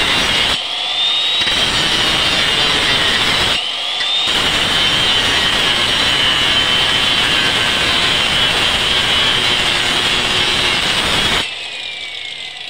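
Handheld electric power cutter running at full speed and cutting bamboo, with a high motor whine. Twice it drops out briefly and the whine rises again as the motor spins back up, and about eleven seconds in it is switched off and winds down with a falling whine.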